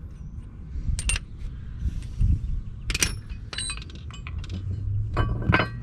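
Sharp metal clinks with a short ring as tools and the 13 mm bolt are worked off a Brembo front brake caliper: single clinks about a second in and three seconds in, then a quick cluster near the end.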